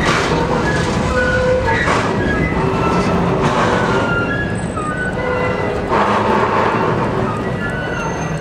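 Ford hi-rail pickup truck rolling along the rails close by behind a freight train, with short squeals from the wheels on the rail over a steady rumble of rolling stock.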